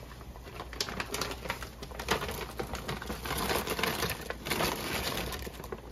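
A plastic bag of cooked shrimp crinkling and rustling as the shrimp are shaken out into a pot of boiling seafood-boil broth, with irregular crackly clicks and the broth bubbling.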